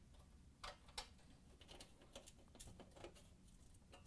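Faint, scattered light clicks and ticks of a steel hinge and screw being handled and fitted to the metal edge of a range cooktop while it is screwed in place with a Phillips screwdriver.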